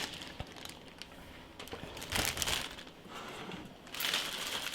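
Rustling and light clicks of hands handling PC parts and their plastic packaging, with a louder rustle about two seconds in and another near the end.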